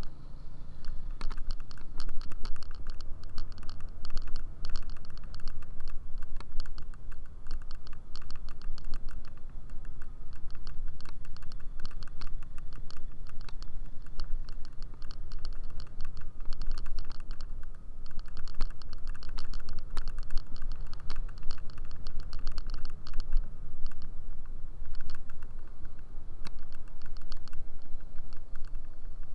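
Scooter ridden along a road, heard from the handlebars: a fast, irregular clicking rattle over a low rumble of wind and road.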